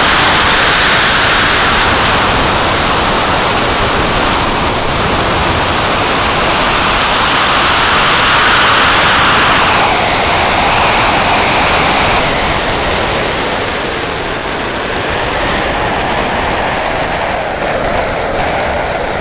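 Zipline trolley running along its steel cable, a high whine that slowly falls in pitch as the trolley slows, over loud wind rushing across the microphone.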